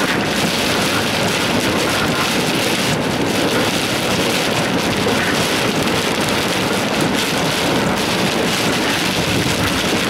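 Heavy rain pelting the roof and windshield of a moving car, heard from inside the cabin, with strong wind: a steady, dense rush with no break.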